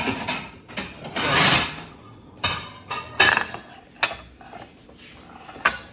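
Cooking utensils clattering against a frying pan and dishes: a scrape about a second in, then several sharp knocks.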